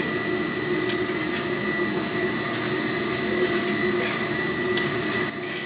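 Forge air blower running, a steady whirring hum with air rushing into the fire, with a few light metallic clicks; it drops in level shortly before the end.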